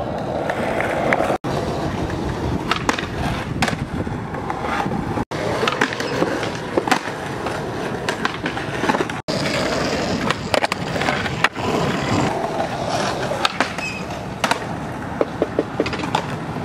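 Skateboard wheels rolling over concrete with a steady gritty rumble, broken by many sharp clacks of the board striking the ground. The sound drops out for an instant three times where clips are cut together.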